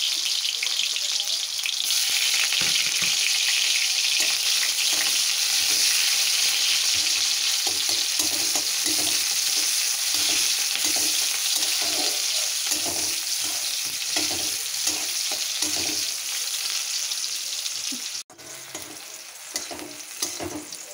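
Chopped onions sizzling in hot oil in a steel kadai, with a metal spatula scraping and stirring them in repeated strokes through the second half. Near the end the sizzle drops abruptly to a quieter level and carries on.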